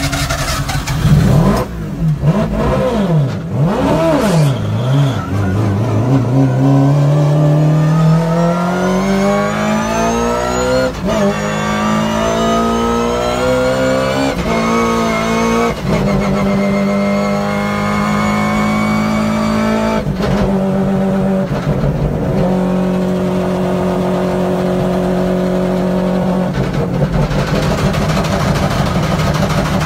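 Rotary engine of a drift car heard from inside the cabin. It starts with a few quick throttle blips, then pulls up in long rising sweeps, the pitch dropping back at each shift. It is held at steady high revs for several seconds at a time while the car slides.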